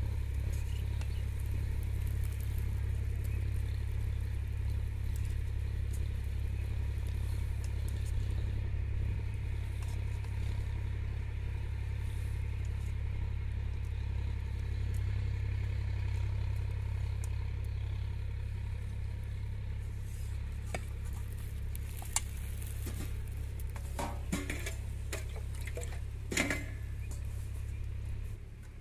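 A pan of fish curry on the stove under a steady low rumble, with a few sharp clinks of utensil against the pan over the last several seconds. The rumble cuts off shortly before the end.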